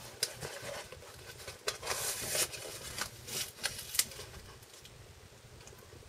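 Hands opening a cardboard shipping box: scattered rustles, scrapes and taps of the cardboard flaps being handled, fading out toward the end.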